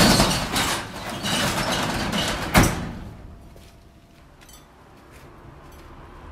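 Metal roll-up shutter being raised, a rattling run that ends in a sharp clunk about two and a half seconds in, then much quieter room sound.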